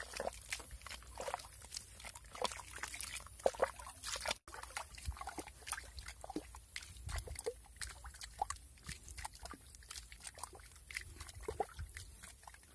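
Bare hands scooping and squeezing thick wet mud in a waterlogged hole: a busy, irregular run of squelches, sucks and small slops with no steady rhythm.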